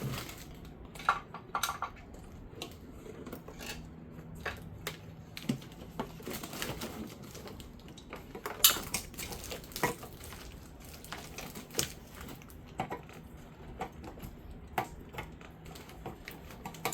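Irregular plastic clicks and knocks as bulb sockets are twisted into a 2009 Nissan Altima headlight housing and the assembly is handled, with the loudest knock about eight and a half seconds in.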